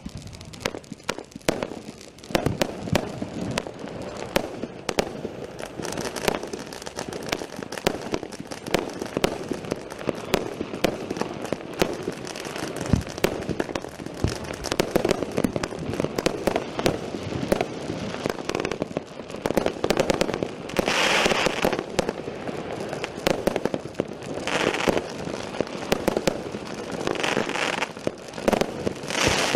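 A 146-shot Hestia Royal Time firework cake (20/30 mm tubes) firing in rapid, continuous succession: a dense stream of sharp launch shots and bursts, with a few louder, hissier stretches in the last third.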